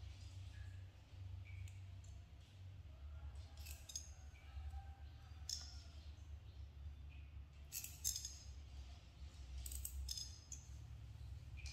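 Small metal nail clipper snipping a monkey's fingernails: sharp clicks in four short clusters, about four, five and a half, eight and ten seconds in, over a low steady hum.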